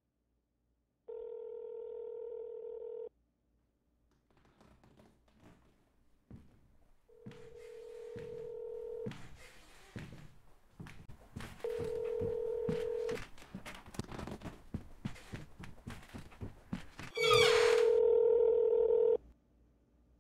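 Telephone ringback tone heard through a phone earpiece: a steady two-second ring repeating four times, about four seconds apart, each ring louder than the last. A rising clatter of clicks and knocks fills the gaps between the later rings, and a brief shrill squeal cuts in at the start of the last ring.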